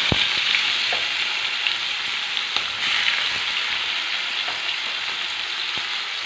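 Sliced onions sizzling in hot oil in a kadai, having just been tipped in. The hiss eases slowly, with small crackles and a light knock near the start.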